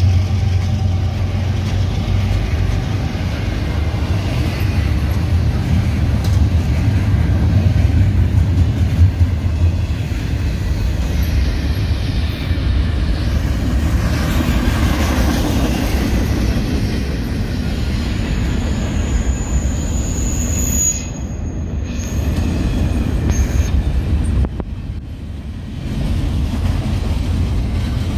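Double-stack container well cars rolling past at close range, a steady rumble and rattle of steel wheels on the rails. A brief high-pitched wheel squeal comes about twenty seconds in.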